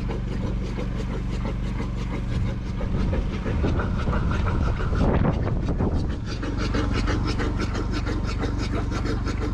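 Excavator engine running steadily with a fast, even clatter; it grows louder and rougher for a few seconds in the middle, then settles back.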